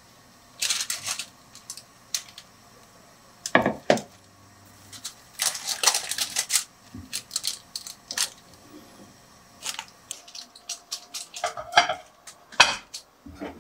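Parchment paper crinkling and rustling in bursts as it is handled around damp rice flour in a pot, with a couple of sharp knocks about three and a half seconds in. Near the end the pot clatters as it is set on the gas stove.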